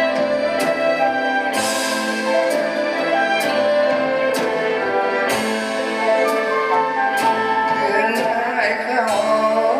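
Live orchestra playing a Thai song arrangement, with sustained instrumental lines over a steady beat struck about once a second. A melody line that wavers in pitch comes in near the end.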